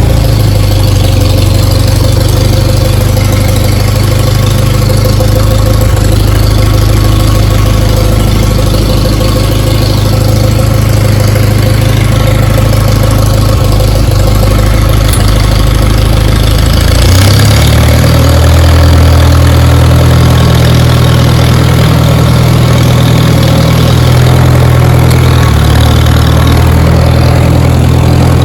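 Allis-Chalmers D17 tractor engine running steadily as the tractor is driven in reverse; a little over halfway through, the engine note steps up to a higher, steady speed.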